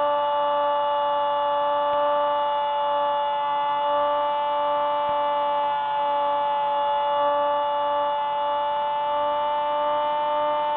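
Hubsan Spyhawk FPV plane's electric motor and propeller whining at a steady throttle, picked up by the onboard camera. One high steady whine with a slight rise in pitch near the end.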